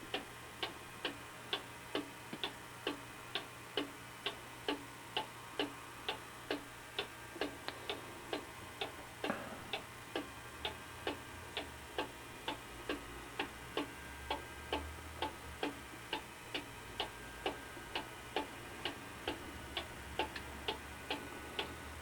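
Vintage cuckoo clock ticking steadily, about two even ticks a second.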